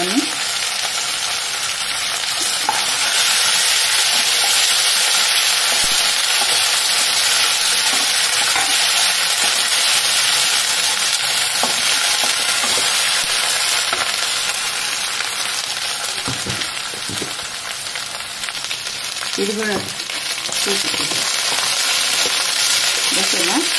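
Fresh mint and coriander leaves frying in hot oil in a pan: a steady sizzle that softens a little past the middle.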